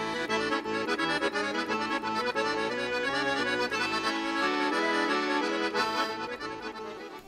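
Traditional Sardinian dance music led by an accordion, a quick run of notes that fades out near the end.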